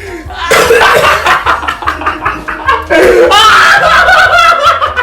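People laughing loudly, in two long stretches with a brief break about three seconds in.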